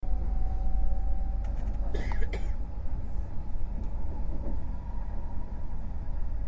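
Eerie wind sound effect: a steady low wind rumble with faint held tones above it, and a few brief higher sounds about two seconds in.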